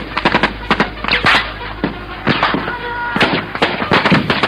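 Small-arms gunfire in an assault: irregular shots from several rifles, a few each second.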